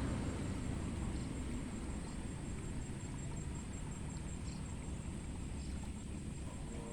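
Steady low outdoor rumble, with a faint high steady whine and a few faint small ticks.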